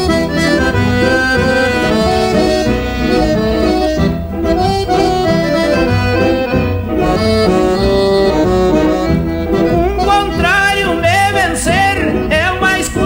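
Accordion playing an instrumental interlude between sung trova verses, a steady melody over a bass accompaniment.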